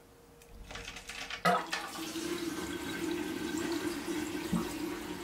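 Water starting to run in a bathroom: a rush builds, a sharp click comes about a second and a half in, then a steady flow of water with a low steady tone.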